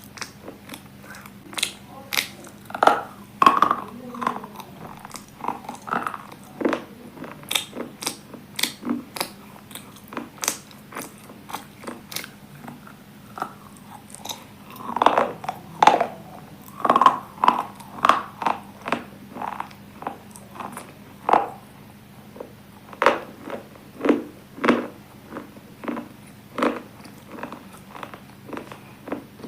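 Biting and chewing of hard, brittle pieces: a long run of sharp, separate crunches at an uneven pace, thickest about three seconds in and again from about fifteen to eighteen seconds in.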